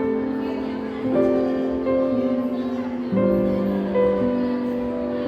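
Soft background music: gentle sustained keyboard chords changing about once a second.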